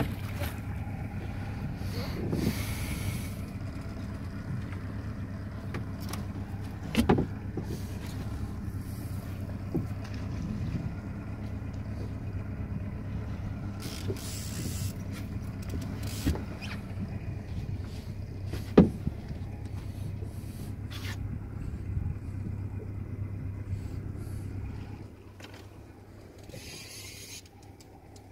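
Small fishing boat's motor running steadily with a low hum, with a couple of sharp knocks on the boat. The motor sound drops away near the end.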